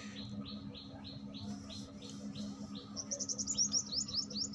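Bird calls: a series of short repeated notes, about two a second, then from about three seconds in a quicker run of higher, rising notes. A steady low hum runs underneath.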